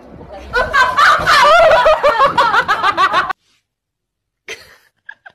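High-pitched laughter in quick repeated bursts that cuts off abruptly about three seconds in, followed by a few faint short sounds near the end.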